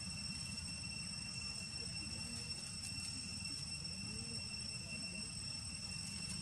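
Outdoor background of steady, high-pitched insect drone over a low rumble, with a couple of faint short wavering sounds.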